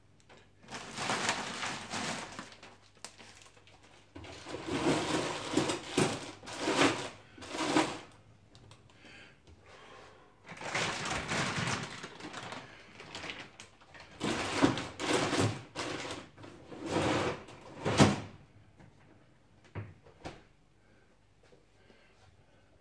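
Kitchen handling sounds: repeated bursts of rustling, crinkling and clatter, as a plastic bag of frozen French fries is picked up and handled, with a sharp knock about eighteen seconds in.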